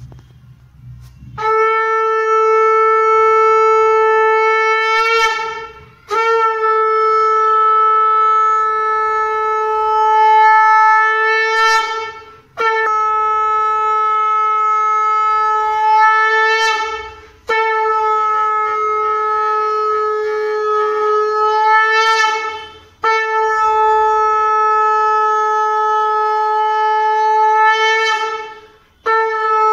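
Conch shell (shankha) blown in Hindu worship: five long, steady horn-like blasts of about four to six seconds each, with short breaths between, and a sixth starting near the end. Each blast bends up in pitch as it cuts off.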